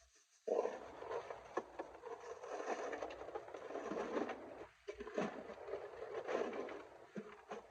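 Ice cubes clattering and rattling as they are poured and shaken out of a bag into a cooler, a dense run of small clicks. It pauses briefly about five seconds in, then goes on.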